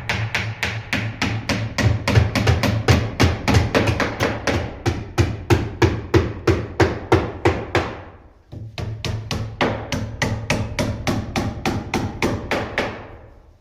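Rapid, evenly spaced hammer strikes on wood, about four to five a second, with a short pause about eight seconds in and fading out near the end.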